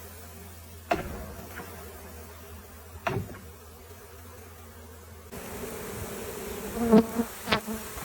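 Honeybee swarm buzzing, with several sharp knocks, the loudest near the end.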